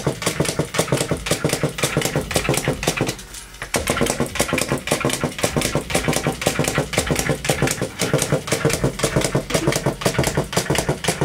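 Battery-powered Chubby Puppies & Friends Toffee Pony toy galloping: its small motor and gear train running with a rapid, even plastic clicking, briefly quieter about three seconds in.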